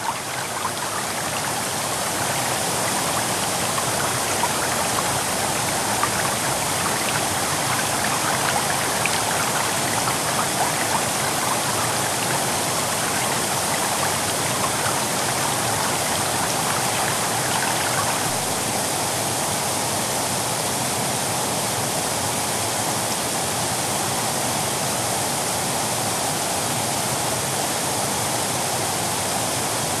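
River water rushing and foaming over rocks in rapids, a steady rush of water whose texture changes slightly about two-thirds of the way through.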